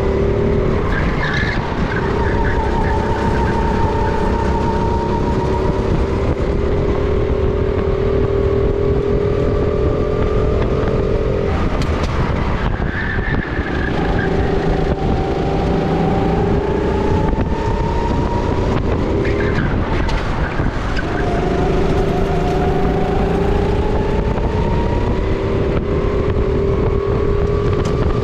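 Sodi RT10 rental kart's engine at race pace, heard from on board: its pitch climbs slowly along each straight, drops as the driver lifts for a corner about twelve seconds in and again about twenty seconds in, then climbs again. Brief tyre squeals near the start and about twenty seconds in.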